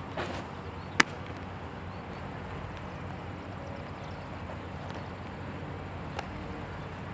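A pitched baseball smacking into a catcher's leather mitt: one sharp pop about a second in, just after a short rustle of the pitcher's delivery. A fainter pop of a ball into a glove comes about six seconds in, over steady outdoor background noise.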